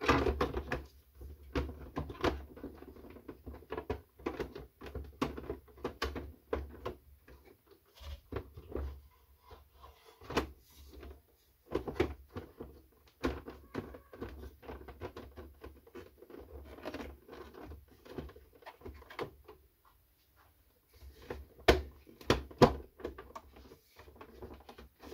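Hard plastic frame and housing parts of a Krups Barista EA9010 coffee machine being handled and fitted into place: a long run of irregular light clacks, taps and knocks, with a short lull after the middle.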